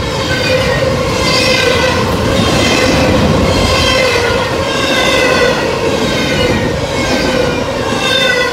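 CSX intermodal freight cars rolling past at speed, with a steady rumble of wheels on rail and a high, wavering squeal from the wheels that swells and fades car by car.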